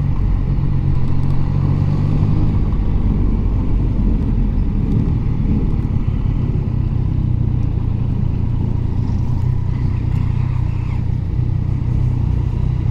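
Yamaha MT-09's inline three-cylinder engine running steadily under way, a low even engine note with a small change in pitch about two and a half seconds in, over light wind and road noise.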